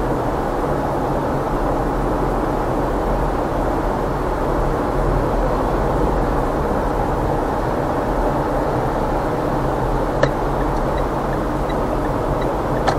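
Steady road and engine noise of a car driving, a continuous rumble with a low hum. A short sharp click sounds about ten seconds in, and another near the end.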